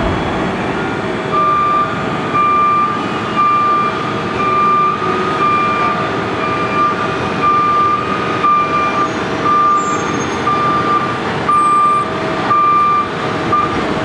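Reversing truck's backup alarm beeping steadily, starting about a second in, over the steady running of diesel engines. The truck is an asphalt hauler with a bottom-unloading flow boy trailer, backing up to an asphalt paver.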